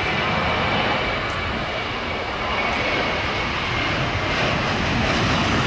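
Airbus A321-200's twin jet engines at take-off power as the airliner rolls down the runway and rotates. The steady noise grows a little louder near the end.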